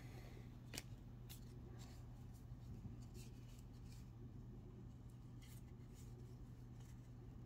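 Near silence: room tone with a low steady hum and a few faint, scattered ticks.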